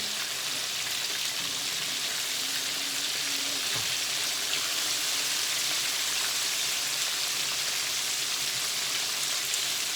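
Chicken pieces deep-frying in hot oil: a steady sizzle and crackle.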